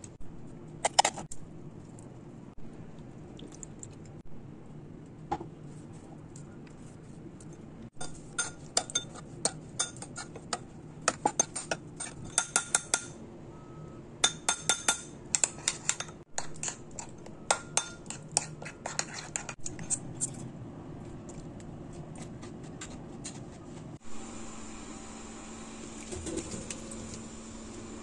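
Metal spoons clinking and scraping against a ceramic bowl while stirring a thick chili dressing, in quick runs of sharp, ringing clinks that come thickest in the middle.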